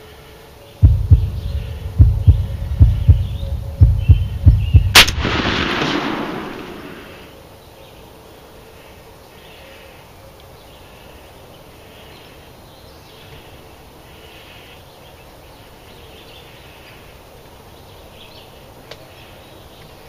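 A single shotgun blast at turkeys about five seconds in, its echo dying away over about two seconds. Before the shot comes a run of loud low thumps and rumble close to the microphone, and faint bird calls go on in the background.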